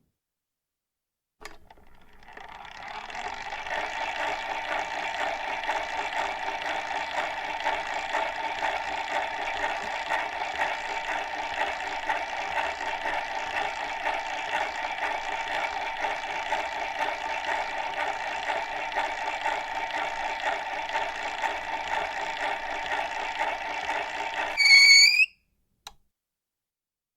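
Antique hand-crank phonograph playing, its needle scratching and crackling along the spinning record. The sound swells in over a second or two and holds steady. Near the end there is a short, loud rising squeal before it cuts off.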